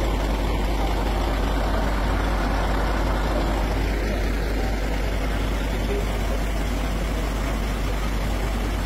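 Truck crane's engine running steadily during the recovery of an overturned truck, a constant low, even drone.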